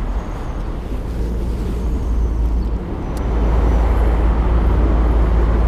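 Steady low rumble of city road traffic, stepping up in loudness about three seconds in.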